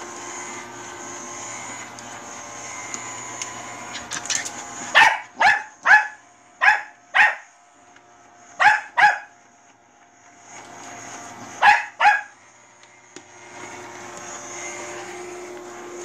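Bichon Frise barking sharply about nine times, in quick pairs and short runs, over the steady hum of a running robot vacuum cleaner. The hum drops away while the barking goes on and comes back near the end.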